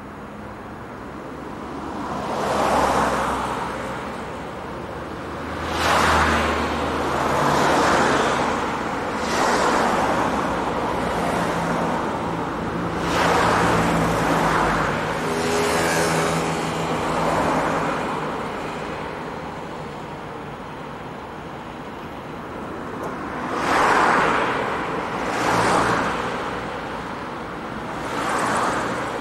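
Road traffic: cars passing one after another, each rising and fading as it goes by, about a dozen in all, with a quieter lull of a few seconds past the middle.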